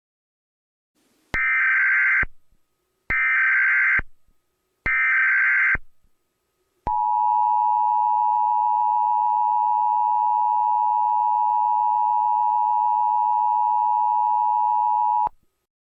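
Emergency Alert System tones: three short bursts of screeching SAME header data, each just under a second, then the steady two-tone attention signal, held about eight seconds before it cuts off.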